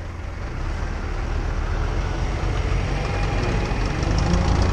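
Ursus farm tractor's diesel engine running as the tractor pulls forward, growing steadily louder.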